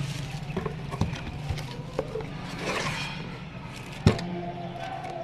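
Handling noises: a few light clicks and knocks and a brief rustle, then one loud sharp knock about four seconds in.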